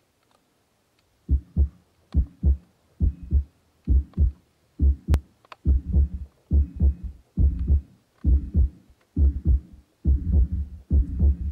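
Heartbeat sound: paired low thumps (lub-dub) repeating evenly a little faster than once a second, starting about a second in.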